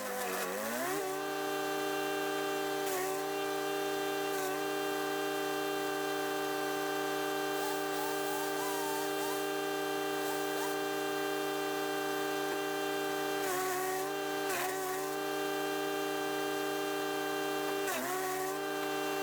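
Chipease D1500E wood chipper's 420cc four-stroke engine running at steady speed. Its pitch sags and recovers several times as branches are fed in, most deeply right at the start.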